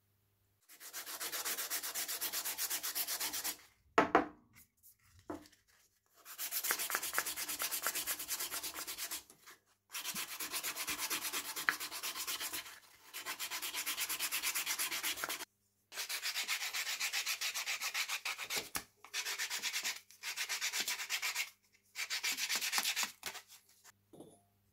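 Hand-sanding a bare wooden trowel handle: fast back-and-forth scratchy rubbing strokes in runs of a few seconds with short pauses between. A single sharp knock comes about four seconds in.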